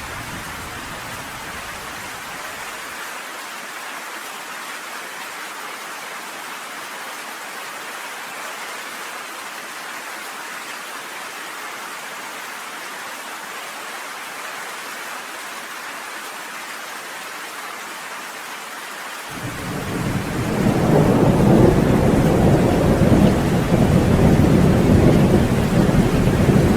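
Steady rain falling, with a low rumble of thunder dying away in the first seconds. About twenty seconds in, a loud, long thunder rumble builds and keeps rolling.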